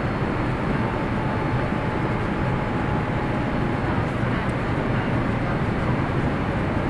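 Steady cabin noise inside a Boeing 787-8 Dreamliner on landing approach: the even rush of airflow and engine noise, with a faint whine that fades out about four seconds in.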